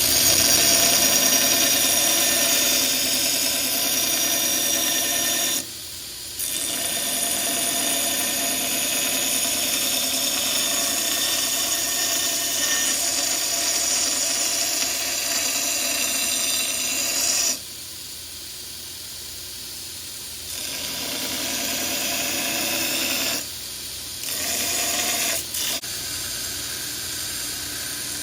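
Power grinder shaping a spring-steel cleaver blank: steady grinding with a high whine, broken into several passes by short drops in level.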